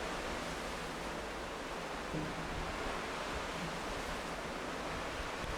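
Steady, even rushing noise with no distinct events, like a continuous hiss of wind or surf.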